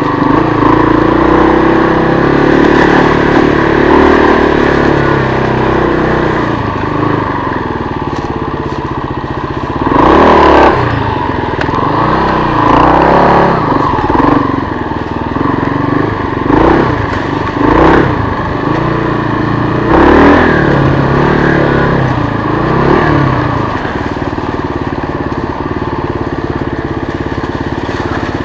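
1996 Kawasaki KLR 250's single-cylinder four-stroke engine running under way, revved in several short bursts from about a third of the way in, its pitch rising and falling with each.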